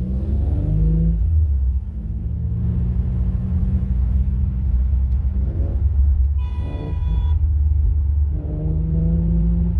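Infiniti G35 coupe's 3.5-litre V6 running through ISR resonated test pipes, a deep exhaust rumble whose pitch rises and falls with engine speed. A short horn-like toot sounds about six and a half seconds in.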